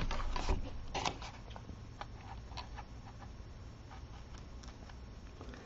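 A few faint clicks and taps of cardstock and scissors being handled, mostly in the first three seconds, then quiet room tone.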